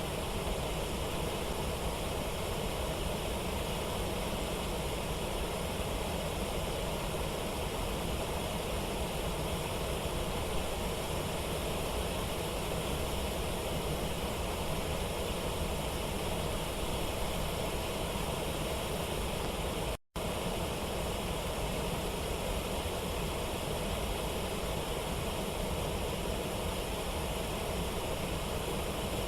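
Steady rushing water of a waterfall and river rapids, an even roar with no let-up, cut off for an instant about two-thirds of the way through.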